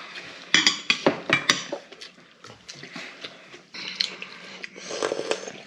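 Tableware clinking during a meal: spoons and chopsticks against bowls and dishes. There are several sharp clinks in the first second and a half, then a longer, noisier stretch of handling near the end.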